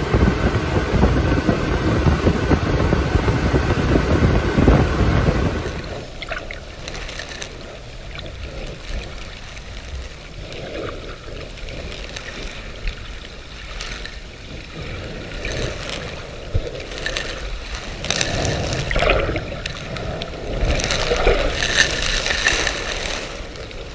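Motorboat running on open water with heavy wind noise on the microphone. About six seconds in it cuts off suddenly, giving way to quieter, irregular water sloshing and splashing.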